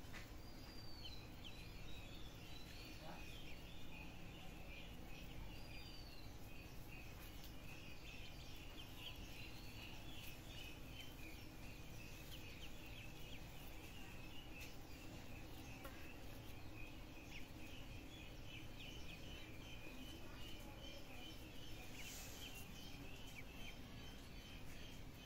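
A group of ducklings peeping faintly and continuously, many quick high peeps overlapping, with a few longer arched peeps standing out in the first seconds, over a steady background hiss.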